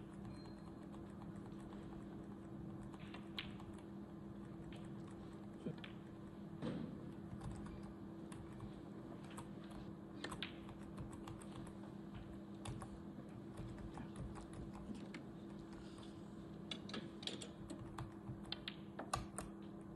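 Computer keyboard typing: scattered light key clicks, with a quick run of them near the end, over a steady low hum.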